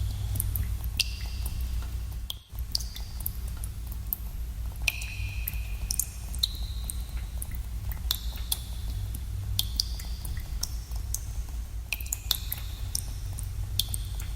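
Water drops falling at irregular intervals in a cave, each a sharp drip and some ringing briefly as a high pitched plink, over a steady low rumble of cave air. The rumble cuts out for a moment about two and a half seconds in.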